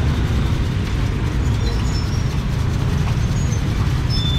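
Steady low rumble of motor-vehicle traffic on a busy city street, with a few faint short high chirps or squeaks over it.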